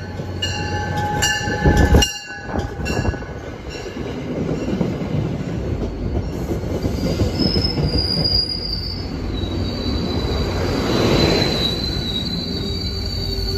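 MBTA commuter rail train passing close along the platform: the end of a horn blast and a loud rush as the leading cab car goes by in the first couple of seconds, then the steady rumble of the coaches rolling past, with a high, thin metallic squeal from about seven seconds in.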